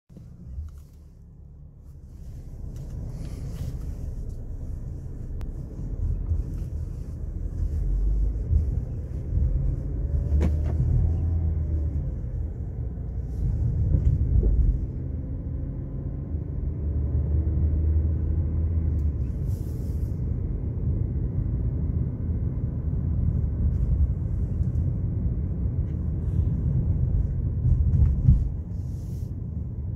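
Car cabin rumble from the engine and tyres as the car pulls away and drives along a road, louder after the first few seconds, with the engine pitch rising and falling a few times.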